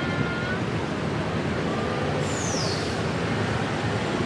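Steady city road traffic noise, with a brief high squeal falling in pitch about two seconds in.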